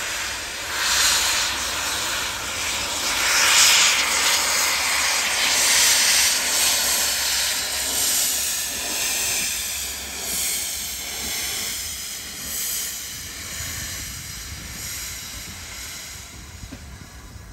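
Merchant Navy class steam locomotive 35028 'Clan Line' hissing loudly with steam from its cylinder drain cocks, in surges near the start and again a few seconds in. The hiss then thins and fades as the locomotive draws away and the Pullman coaches roll past.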